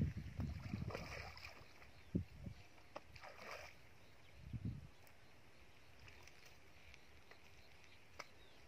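Shallow muddy pond water splashing and sloshing as it is scooped and thrown with a basin: a quick run of splashes in the first second and a half, then a few single splashes or thuds, and mostly quiet over the last few seconds.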